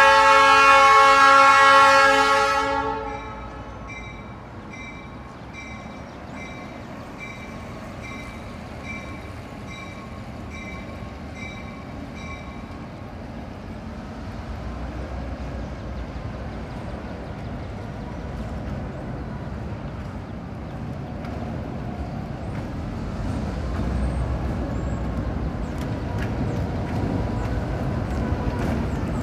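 Diesel locomotive horn sounding one loud chord at the grade crossing, cutting off about three seconds in. Then the locomotive's diesel engine rumbles steadily, growing louder as the slow train approaches.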